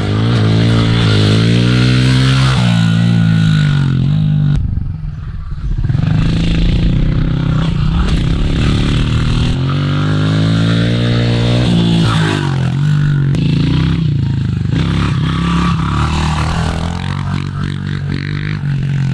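2021 Honda CRF110 pit bike's small single-cylinder four-stroke engine being ridden, revving up and down as the pitch climbs and drops with throttle and gear changes. The throttle comes off briefly about five seconds in.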